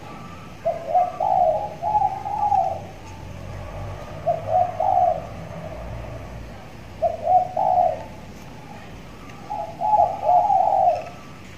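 Spotted dove (tekukur) cooing: four phrases of its multi-note song, a few seconds apart. A hand-trained young bird, tethered, that has begun singing freely.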